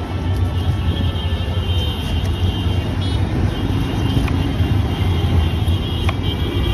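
Steady low rumble of road traffic, with a few faint taps and scrapes as a knife pares the skin off a pineapple on a chopping block.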